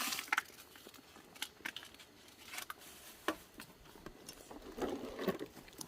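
Faint, scattered clicks and taps of cooking utensils and pots, a few single ticks about a second apart and a small cluster near the end.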